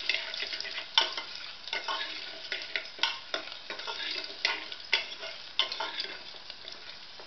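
Ginger, bay leaf and whole spices sizzling in hot ghee in a pressure cooker, stirred with a steel ladle that scrapes and clicks against the pot at irregular moments.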